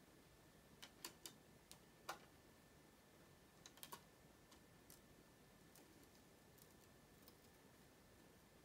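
Faint, scattered clicks and taps of a plastic CD case and disc being handled and opened, a cluster in the first four seconds and a few fainter ones after, over near silence.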